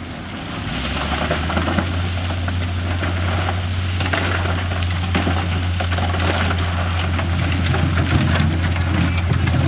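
Diesel engine of heavy earthmoving machinery running steadily, with a gritty crackling noise over it that grows louder about a second in.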